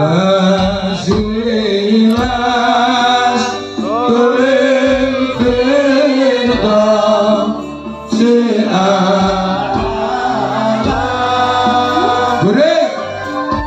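Singing through a PA system: a long melodic line of held, wavering notes with slides between them, over gamelan accompaniment with drum strokes.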